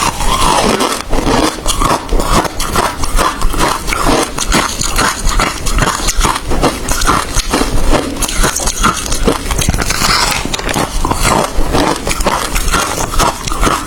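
A person biting and chewing hard ice, a dense irregular run of sharp crunches and cracks.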